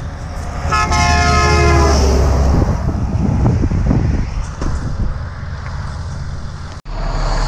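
A heavy truck's air horn sounds once for about a second and a half, dropping slightly in pitch as it ends, then the truck's engine and tyres rumble past. Near the end the sound cuts to a steady engine idle.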